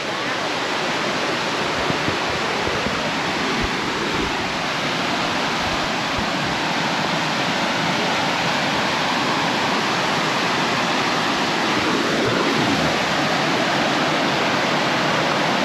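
Waterfall running high after rain, a loud, steady rush of water.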